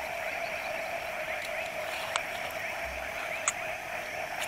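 Steady chorus of frogs calling at night, many overlapping calls that blend into a constant sound. Two short faint clicks come through about two and three and a half seconds in.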